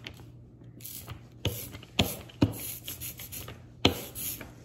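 Hand ink brayer rolled back and forth over an inked paper stencil: a sticky hiss, broken by four sharp clicks.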